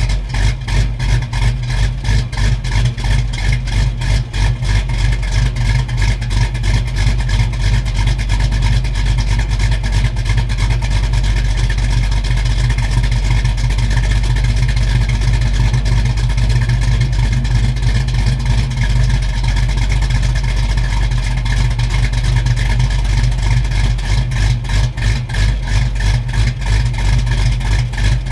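A 1986 Mustang GT's 5.0 V8 idling with an aftermarket cam, heard at the tailpipes through Flowmaster mufflers, an X-pipe and no catalytic converters. The exhaust pulses steadily but unevenly, its loudness dipping and surging in a choppy rhythm, most of all near the start and again near the end.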